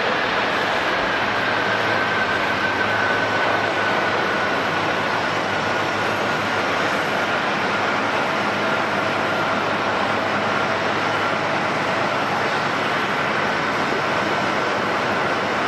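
Four-engine jet airliner's engines running, a steady loud rush of jet noise with a faint whine that slowly falls in pitch.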